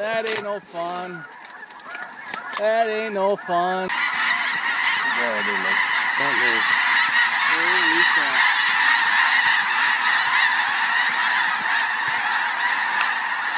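A large flock of snow geese calling: a few separate calls at first, then about four seconds in a dense, continuous clamour of many overlapping high honks that carries on steadily.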